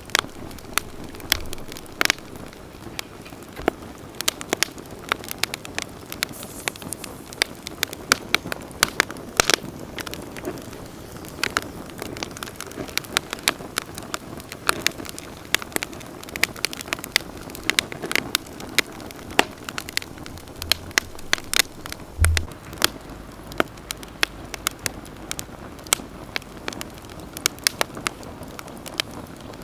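Wood campfire crackling, with frequent irregular sharp pops over the steady hiss of the flames; a brief low thump about three-quarters of the way through.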